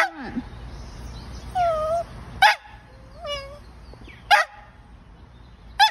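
A dog barking four short, sharp times a couple of seconds apart, with brief whines between, begging for its dinner.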